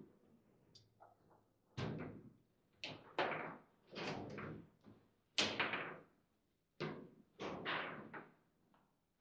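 Foosball table in play: a string of sharp knocks and thuds at uneven intervals, as the ball is struck by the rod figures and rods bang against the table, the loudest about halfway through.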